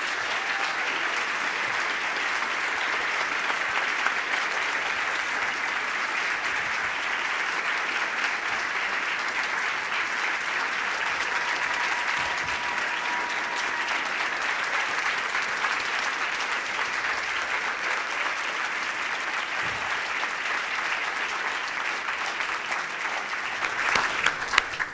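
Large audience applauding, a long steady round of clapping that thins out near the end.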